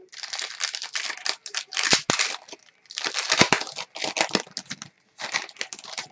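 Shiny plastic wrapper of a sealed trading-card pack being torn open and crumpled, crinkling in several bursts with short pauses.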